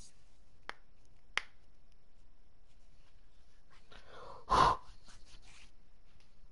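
Two faint clicks, then about four and a half seconds in a short, loud puff of a person's breath into a microphone.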